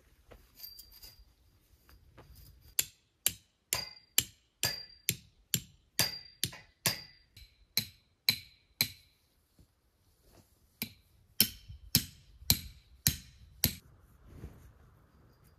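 A hammer striking metal in a steady run of sharp blows, about two a second, each with a brief metallic ring. Softer taps come first, then about a dozen blows, a pause of about two seconds, and six more blows.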